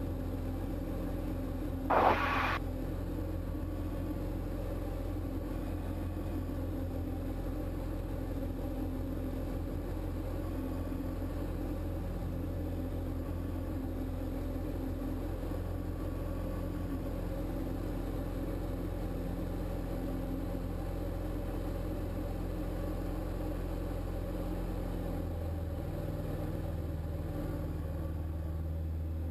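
Steady drone of a Diamond light aircraft's piston engine and propeller heard from inside the cockpit in climb, with a short burst of noise about two seconds in. Near the end the engine note shifts slightly.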